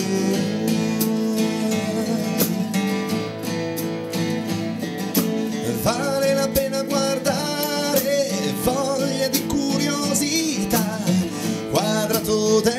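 Acoustic band playing live: strummed acoustic guitars, an acoustic bass guitar and a small drum kit with snare and cymbal strokes, with a voice singing a held line about halfway through and again near the end.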